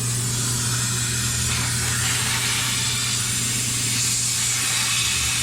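Compressed-air blast nozzle on a CNC mill hissing steadily, blowing air onto the cutting tool to cool it, over a steady low hum.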